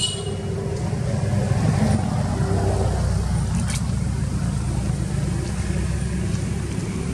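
A motor vehicle's engine running, a steady low rumble that swells slightly about two seconds in.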